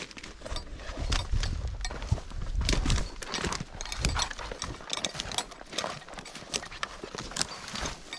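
Footsteps crunching through dry brush and twigs, a stream of irregular snaps and crackles, with a low rumble in the first few seconds.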